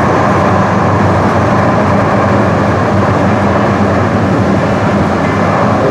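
DART light rail train running at speed, heard from inside the passenger car: a steady, even noise of wheels on the rails with a low hum underneath.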